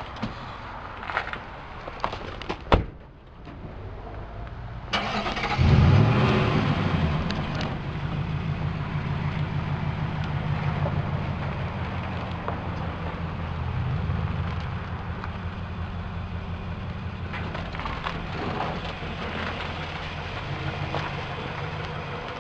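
A few sharp knocks and clunks, then a truck engine starting about five seconds in and running steadily.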